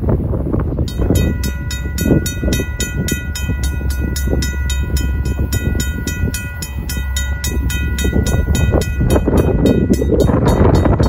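RACO mechanical railroad crossing bell starting up about a second in, then ringing with about four strokes a second as the crossing signals activate for an approaching train.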